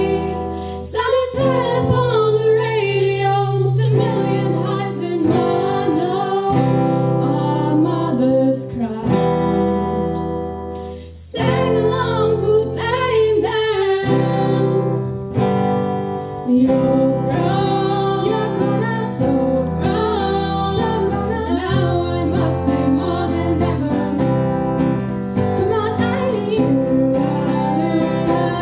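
A live song: several female voices singing together over strummed acoustic guitar, with a short break about eleven seconds in.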